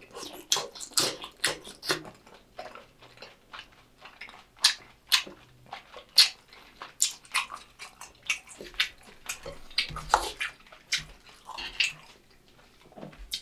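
Close-miked chewing of a mouthful of Korean sweet-and-sour pork (tangsuyuk) in its sauce: irregular wet clicks and smacks, several a second.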